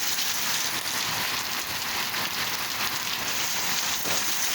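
Steady heavy rain falling on surfaces.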